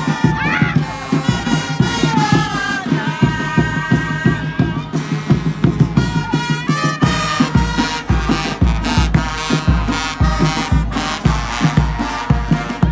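Marching brass band playing: drums beating a steady march rhythm under held trumpet and trombone notes, with cymbal crashes. The bass-drum beats grow heavier about halfway through.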